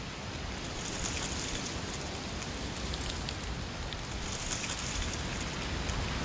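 Wind gusting through autumn trees with dry leaves rustling in a steady hiss that swells about a second in and again past four seconds, over a low wind rumble.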